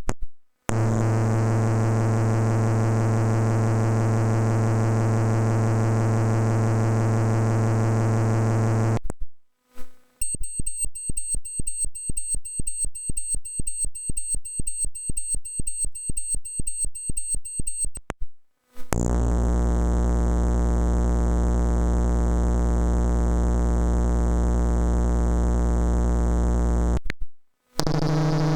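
Synthesizer sound effects played one after another with short gaps of silence: a steady buzzing drone, then a fast train of clicks under a thin high whistle, then a deep steady drone, with another drone starting near the end.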